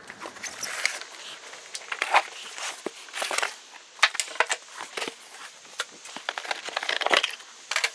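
Cardboard and plastic packaging handled while a mitre saw is lifted out of its box: irregular rustling, crinkling and short knocks.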